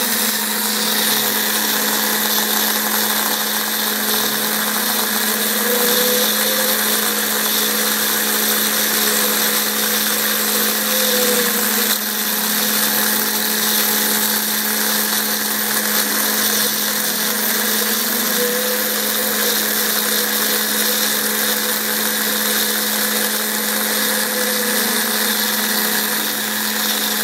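Small CNC router milling an adaptive pocket in foam: the spindle runs with a steady hum and hiss. Motor whines rise and fall in pitch every few seconds as the cutter sweeps round the curves of the toolpath.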